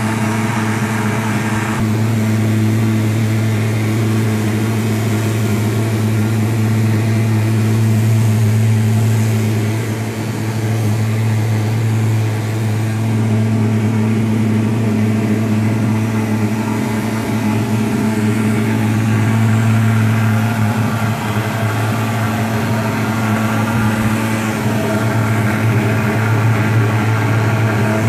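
PulsFog K-10 pulse-jet thermal fogger running continuously, a steady, even-pitched drone that dips briefly about ten seconds in.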